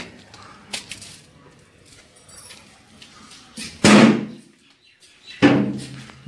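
Light clicks, then two loud bangs of a sheet-steel door about a second and a half apart, each ringing briefly.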